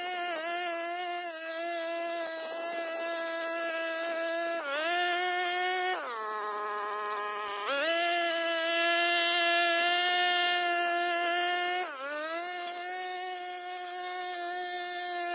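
Brush cutter's small engine running at high speed while cutting weeds, a steady high-pitched buzz. It dips briefly about four and a half seconds in, drops to idle for about a second and a half around six seconds, then revs back up and runs loudest before dipping again near twelve seconds.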